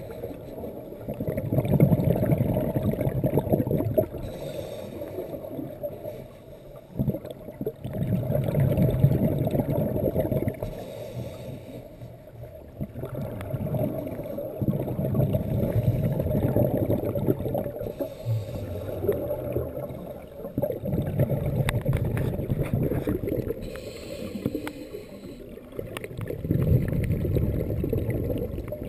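Scuba diver breathing through a regulator, heard underwater. Each exhale lets out a low, rumbling rush of bubbles, and these swell and fade about five times, roughly every five to six seconds. Fainter hissing inhales come in between.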